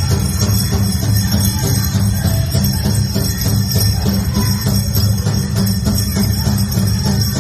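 Loud music with a steady beat and jingling bells, played for a powwow fancy dance.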